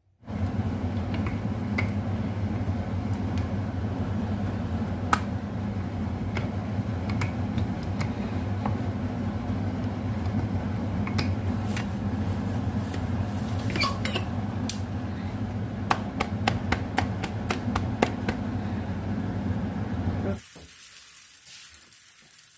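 Pita dough being rolled out on a wooden board: scattered light clicks and knocks of the rolling pin and board over a steady low hum. About twenty seconds in, the hum cuts off suddenly, leaving a fainter high hiss.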